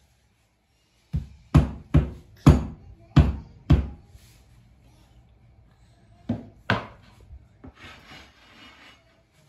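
Rubber mallet knocking on flooring planks: six sharp knocks in quick succession, two more a couple of seconds later, then softer scraping and rubbing of tools on the floor near the end.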